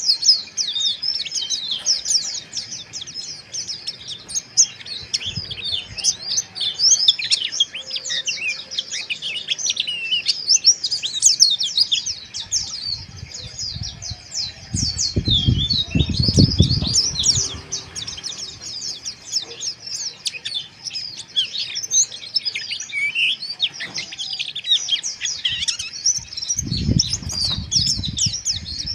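A group of white-eyes (pleci) twittering rapidly together, with many short, high chirps overlapping without pause. A low rumble comes in about halfway through and again near the end.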